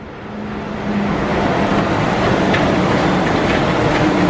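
Walt Disney World monorail train passing close overhead: a steady rushing noise with a low hum underneath that swells about half a second in and then holds.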